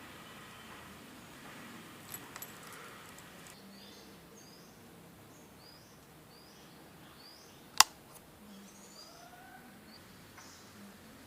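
A small bird chirping over and over, about two short high calls a second, over faint outdoor background noise. A single sharp click comes about eight seconds in.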